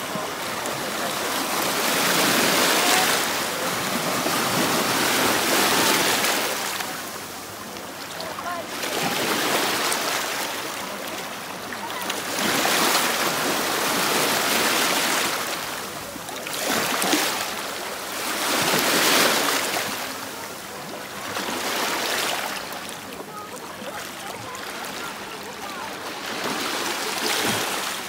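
Small sea waves washing in over rocks and pebbles at the shoreline, the rush of water swelling and ebbing every few seconds.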